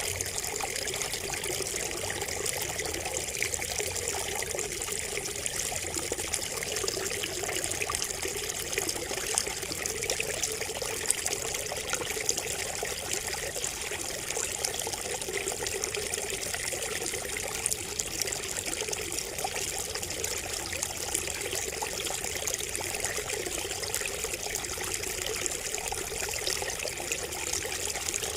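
Water trickling and splashing steadily from a bamboo spout.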